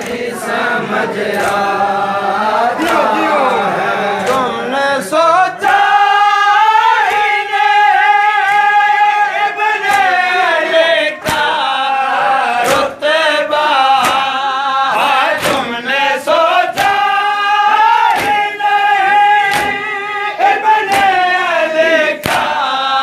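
A group of men chanting a mourning noha together in chorus, with a sharp slap about every second and a half: the rhythmic chest-beating of matam.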